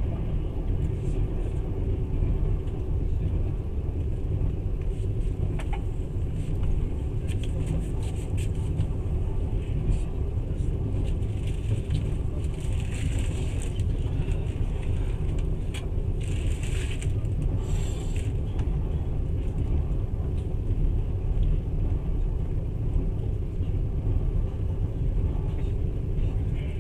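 Steady low rumble of a moving passenger train, heard from inside the carriage, with a few brief hissing rushes around the middle.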